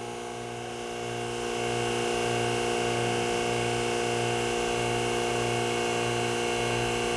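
Commercial single-boiler espresso machine's water pump running steadily, refilling the drained boiler before the heating is switched on. It is a steady mechanical hum with a slow low throb, growing a little louder a second or two in.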